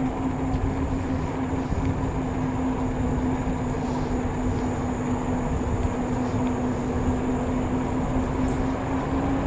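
An e-bike riding steadily on asphalt: wind rushing over the microphone and tyre noise, with a constant humming tone from the e-bike's electric motor.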